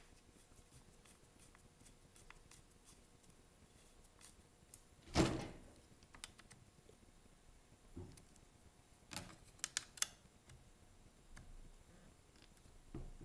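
Faint clicks and knocks of a screwdriver and hands working on a string trimmer's plastic engine cover, with one louder knock about five seconds in and a few sharper clicks later on.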